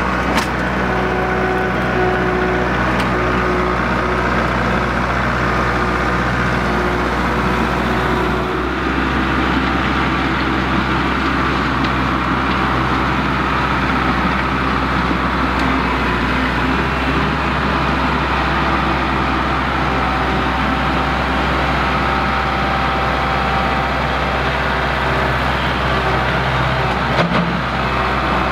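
Kubota MX5400 tractor's four-cylinder diesel engine running steadily as it drags a land plane through loose dirt. There is a brief clunk near the end.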